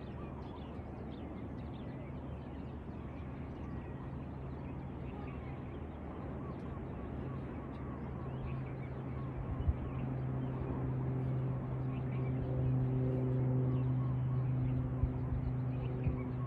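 Many birds chirping and calling in the dawn chorus over a steady low engine hum from a vehicle, which grows louder in the second half.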